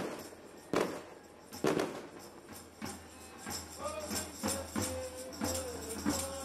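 Procession music: a tambourine jingling with sharp percussion strokes at uneven intervals. From about four seconds in, a voice sings long held notes over it.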